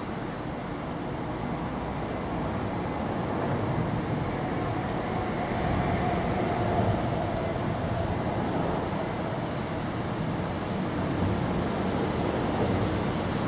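Steady rumble of a passing vehicle, growing louder over the first few seconds and then holding.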